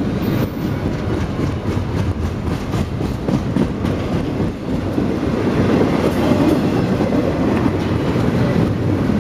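Double-stack intermodal well cars of a CSX freight train rolling past close by: a loud, steady rolling noise with wheels clicking repeatedly over the rails.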